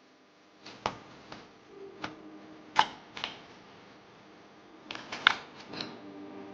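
Handling noise from a smartphone and its packaging during unboxing: a series of sharp clicks and taps in three bunches, the loudest about three seconds in and just past five seconds in. A steady low hum runs underneath.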